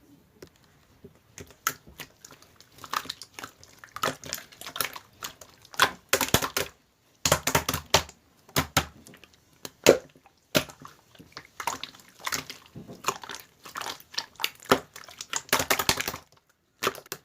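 Slime being squished and poked by hand, making irregular sticky crackles and popping clicks in clusters.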